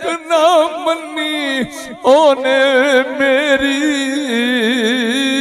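A man singing a Saraiki naatia doha (devotional verse) unaccompanied, drawing out long wavering, ornamented notes with only brief breaks for breath.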